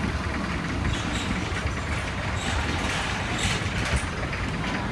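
Long-tail boat engine running steadily, a continuous low drone.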